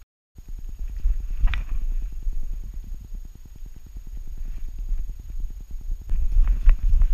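Rumbling, knocking handling noise of a GoPro camera strapped to the back of a walking Saarloos wolfdog, the mount jostling with her steps. It cuts out briefly at the start; there is a sharp click about a second and a half in, and a run of clicks and knocks near the end.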